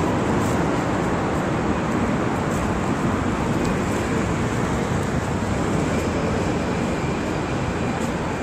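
Steady city road traffic: cars and buses running along a wide street, heard as an even rumble and hiss.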